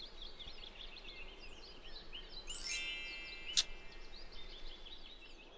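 Cartoon outdoor ambience of birds chirping, with a bright ringing chime swelling up about two and a half seconds in and a sharp click about a second later.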